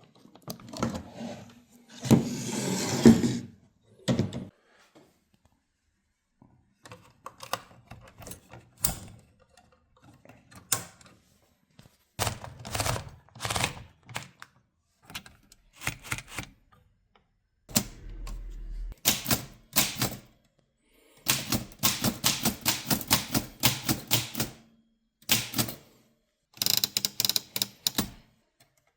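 Remington Portable 480 folding typewriter being worked: scattered sharp clacks of keys and mechanism, with a longer rougher stretch about two seconds in, then fast runs of keystrokes in the second half.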